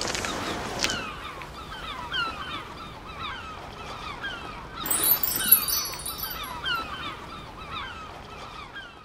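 A flock of geese calling, many short falling honks overlapping. A brief rustle of handling about five seconds in.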